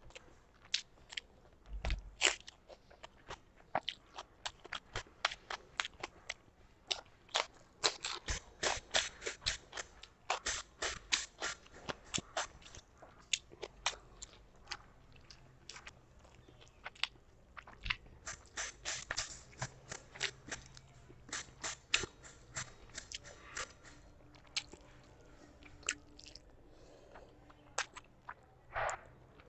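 A person chewing mouthfuls of rice and chicken curry right at a clip-on microphone: a run of sharp wet smacking and crunching clicks, coming in dense bursts with quieter gaps between.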